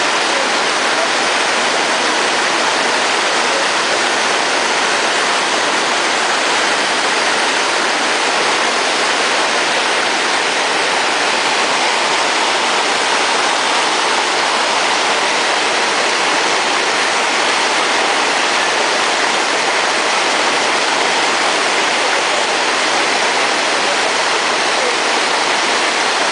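Shallow rocky stream flowing over stones close to the microphone: a steady, even rush of water with no change in level.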